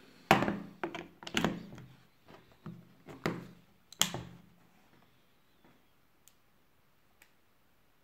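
Plastic knocks and clicks as a power strip and a USB wall charger are handled and plugged together, with a USB cable's plug pushed into a charger port: a quick run of about six knocks in the first four seconds, then two faint ticks.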